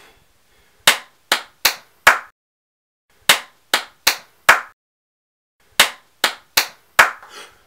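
Hand claps in a steady rhythm: four groups of four sharp claps, one group about every two and a half seconds, with silence between the groups.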